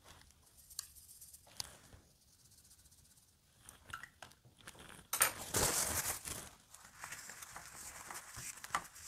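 Watercolour brush being worked: a few light clicks and taps, then about five seconds in a louder rustling scrub lasting about a second, settling into softer brushing.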